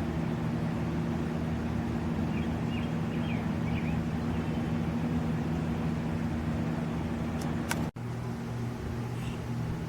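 A steady low motor hum, with a few faint high chirps in the first few seconds. The sound drops out abruptly about eight seconds in, then the hum resumes.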